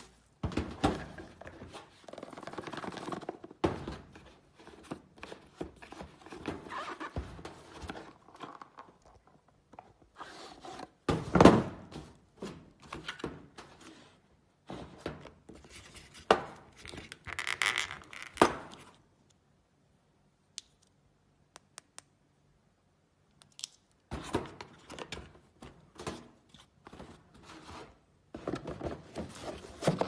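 Bubble wrap and a rigid gift box being handled: irregular rustling and crinkling of plastic wrap with scrapes and knocks, one loud knock partway through, then a few seconds of near silence before the rustling resumes.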